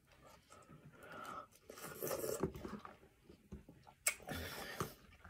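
Watermelon being chewed with the mouth close to the microphone, with a sharp click of a metal fork against a plastic container about four seconds in.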